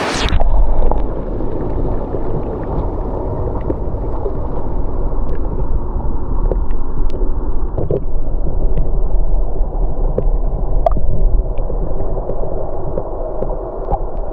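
Rushing mountain creek heard with the camera's microphone underwater: a loud, muffled low rumble and gurgle with scattered small clicks, the hiss of the open air cut off completely.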